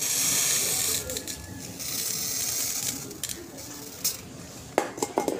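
A steady hiss stops about a second in, followed by scattered sharp clicks and knocks, with several close together near the end.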